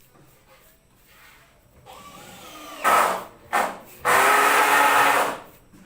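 Power drill run in bursts: a slow, rising start, two short bursts, then a steady run of about a second and a half.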